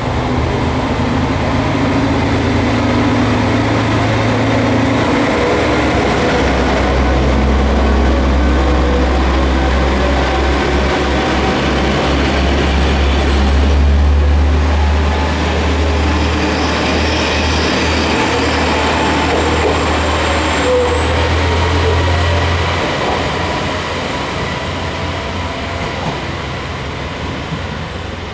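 Two-car KiHa 40 diesel railcar train pulling away from a station platform. The diesel engines drone low and loudest as the cars pass close by about halfway through, then the sound fades as the train draws away.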